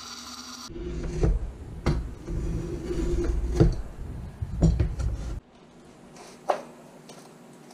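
Band saw running with a steady hum, cut off sharply under a second in. Then a low rumble with several sharp knocks as work goes on at the bench, ending abruptly, and one more knock in a quieter stretch near the end.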